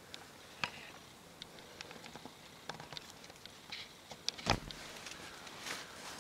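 Quiet handling noise: scattered light clicks and taps with some rustling as the camera is moved among leaves and branches, and one sharper knock about four and a half seconds in.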